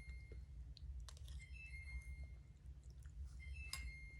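A stove's electronic alert beeping faintly in short high tones, twice in this stretch, with light clicks and a sharper click near the end over a steady low hum.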